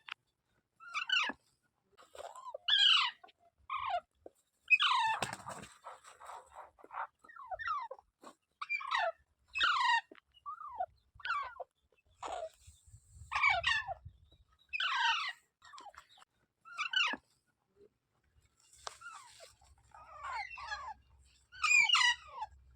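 Parrot calling: a string of short, harsh squawks that mostly sweep downward in pitch, coming about once a second, some in quick pairs.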